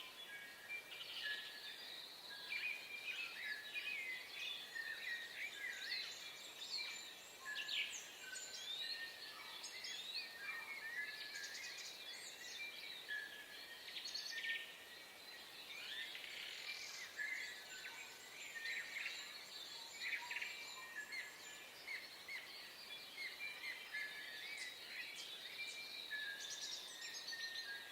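Dawn chorus of many birds calling at once: short, overlapping chirps, trills and whistles that go on without a pause.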